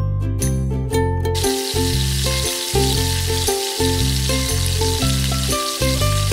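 Marinated chicken thighs sizzling in a hot stainless steel frying pan as they are laid in, the sizzle starting about a second in and carrying on as more pieces go down. Background music plays throughout.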